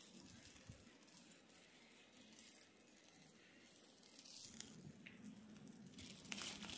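Near silence: faint outdoor background hiss with a few soft ticks.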